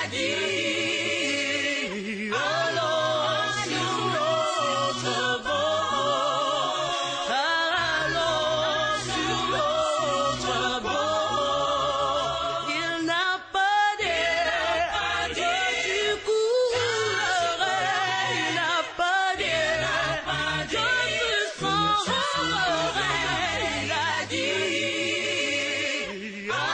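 Background music: a hymn sung by a choir, the voices held with wavering vibrato over a steady low accompaniment.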